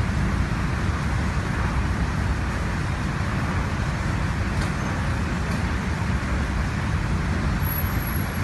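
Steady low rumble with a constant noisy hiss above it, unbroken throughout, of the kind an engine or road traffic makes.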